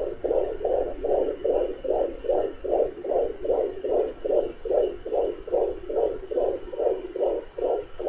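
Fetal heartbeat at 18 weeks heard through a pocket fetal Doppler's speaker: fast, even pulsing at about two and a half beats a second.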